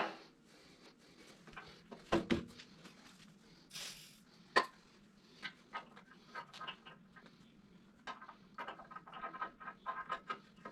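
Scattered light clicks and knocks of tools and metal parts being handled, with a sharper knock about two seconds in and a run of quick small clicks near the end.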